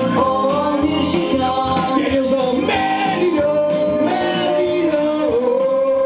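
Men singing karaoke into microphones over a loud backing track, with long held notes.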